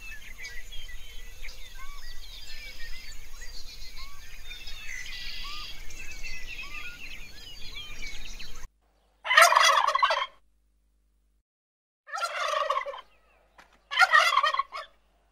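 Outdoor chorus of small chirps and calls, then after a cut three loud, rattling turkey gobbles, each about a second long, spaced a couple of seconds apart.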